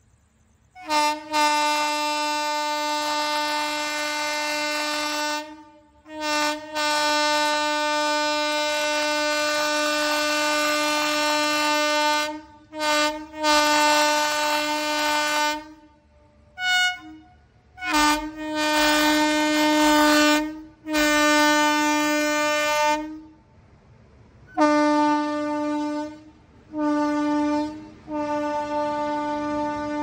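Indian Railways locomotive's horn honking in a long series of blasts at one steady pitch: several held for three to five seconds, with short toots in between.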